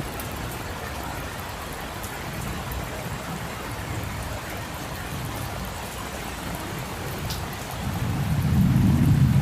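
Steady rain falling on a street, an even hiss with scattered drop ticks. Near the end a low rumble builds and grows louder.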